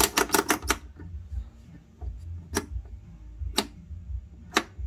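Sharp clicks from the hand-worked controls of a REM cathode-recovery CRT tester: a quick run of clicks at the start, then three single clicks about a second apart.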